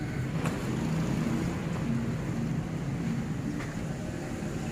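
Steady low rumble of a running motor-vehicle engine, with a couple of faint clicks.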